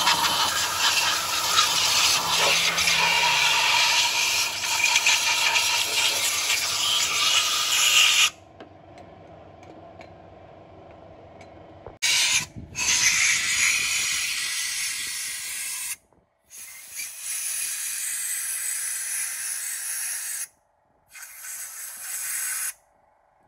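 Compressed-air blow gun hissing in one long blast of about eight seconds, blowing out the cylinders and block deck of an engine with its head removed. After a pause it hisses again in three shorter bursts.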